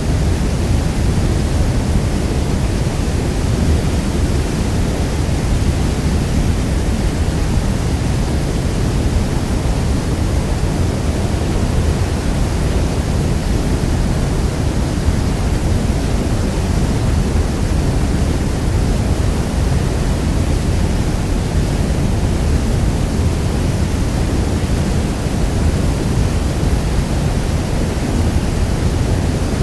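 Niagara Falls' thundering water: a steady, deep rumbling rush of falling water with no breaks or changes.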